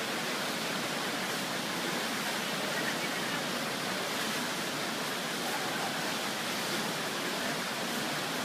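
Steady rushing of river water, an even hiss with no splashes or other breaks standing out.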